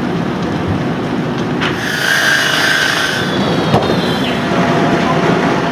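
A house fire burning with loud crackling and popping over a steady low rumble, with a brief hiss about two seconds in.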